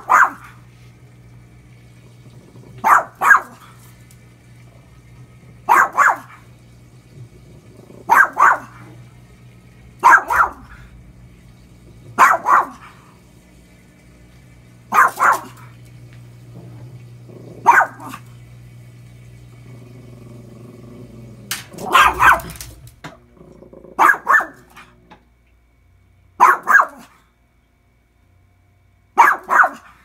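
A chihuahua barking at a washing machine: sharp barks, singly or in quick pairs, every two to three seconds. Under them the washing machine runs with a low steady hum that stops about two-thirds of the way through.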